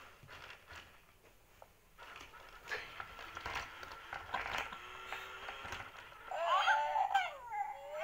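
Remote-control Grogu (Baby Yoda) toys clicking and whirring as they move, then giving their recorded baby coos and babble near the end, a quick string of rising and falling cries.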